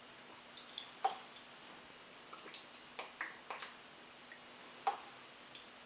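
Faint, scattered small clicks and taps of a soy sauce bottle's cap and metal measuring spoons being handled while soy sauce is measured out.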